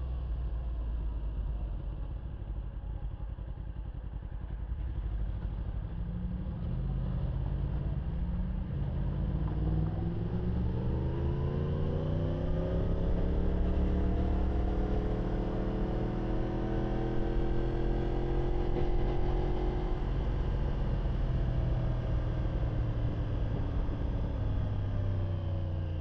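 Yamaha R1's inline-four engine, picked up by a lav mic inside the rider's helmet. It idles low and steady at first, then pulls away with its pitch climbing over several seconds, holds steady, and winds down again near the end as the bike slows.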